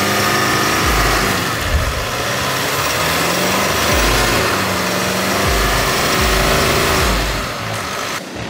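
Mitsubishi MR Triton's turbo-diesel engine revving under load as its mud-caked tyres churn through a muddy rut, the engine note rising and falling, with a low thud roughly every second.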